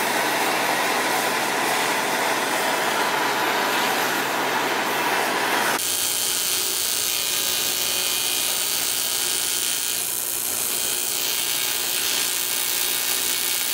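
Hand-held gas torch hissing steadily as it preheats an aluminium intercooler end tank. About six seconds in, this gives way to the steady buzz of an arc welder welding the aluminium.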